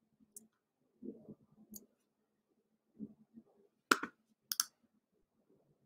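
A computer mouse clicking: two faint clicks, then two sharp, louder clicks about four seconds in, roughly half a second apart, with faint low rustling between.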